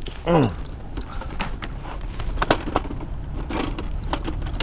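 Light metal clicks, knocks and scraping of a manual wheelchair frame, its wheels already removed, as it is handled and lifted. A short falling voice sound comes just after the start.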